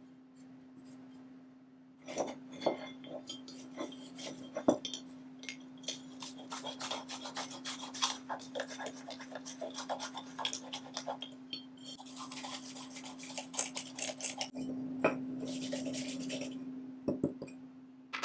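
Hand abrasive work on the metal parts of an old block plane during its restoration: rapid, scratchy rubbing strokes with a few sharp clicks, starting about two seconds in and stopping near the end. A steady low hum runs underneath.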